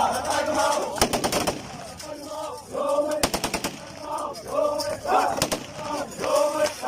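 Bursts of rapid automatic gunfire, one about a second in and another about three seconds in, with a few single shots later, over a group of men chanting.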